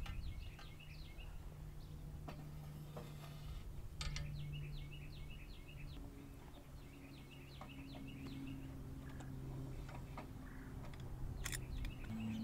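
Small birds chirping in repeated quick runs of short rising notes, over a low steady hum. A few sharp clicks and knocks sound, the loudest one near the end.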